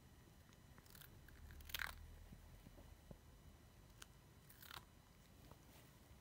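A cat biting and chewing a raw cucumber: a few faint crunches, the loudest close to two seconds in.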